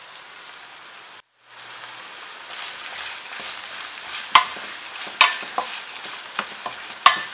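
Chopped onions and shallots sizzling in hot sesame oil in a stainless steel pot, cutting out briefly about a second in. From the middle on, a wooden spatula stirs them, with sharp knocks and scrapes against the pot several times.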